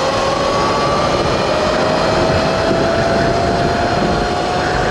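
A 72-volt Sur-Ron electric dirt bike under way: the electric motor's whine rises slowly in pitch as the bike gathers speed, over a steady rush of wind and road noise.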